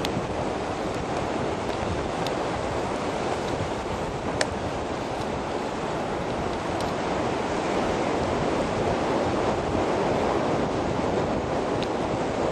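Steady sea surf washing, with wind buffeting the microphone, and a single sharp click about four seconds in.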